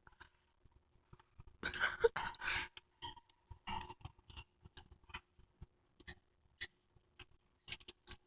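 Pet birds pecking at and cracking seed from a feed bowl: many short, irregular clicks and cracks, with a denser flurry of scuffling about two seconds in.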